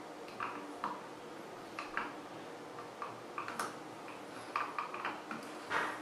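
Faint, irregular small clicks and ticks of a small screwdriver working the screw terminals of a plastic terminal block as wires are fastened in.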